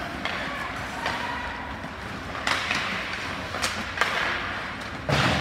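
Scattered short knocks and thuds over a steady background din, with a louder thump about five seconds in.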